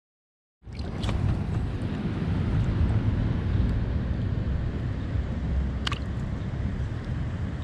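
After a short silence, an outdoor rumble of wind on the microphone and creek water moving around a northern pike held at the surface by lip grippers starts suddenly, with two small splashes, about a second in and near the end.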